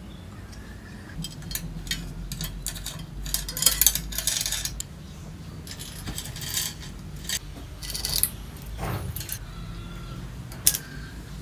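Bicycle chain clinking and rattling as it is handled and fed onto the bike: a run of quick metallic clicks and jingles in the first half, then scattered clicks, with one sharp click near the end.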